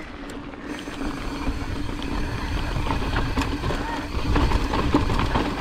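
Pivot Firebird mountain bike ridden fast over rocky singletrack: tyres rumbling over rock, the bike rattling with many sharp knocks, and wind on the mic.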